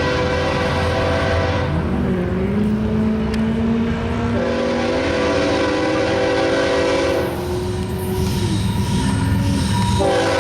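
Florida East Coast freight locomotive sounding its air horn chord in long blasts: one ending about a second and a half in, another in the middle, and a third starting near the end. A steady low rumble from the train runs underneath, and a lower tone glides upward between the blasts.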